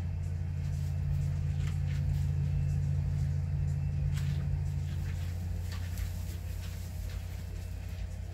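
Model-railroad sound decoders reproducing EMD SD40-2 diesel locomotives labouring under heavy load up a grade, a deep steady drone through a subwoofer sound system. An upper part of the drone drops away about five seconds in, and there are scattered light clicks.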